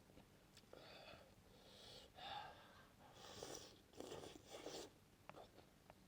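Near silence: a few faint, soft noises close to the microphone, with a few small clicks near the end.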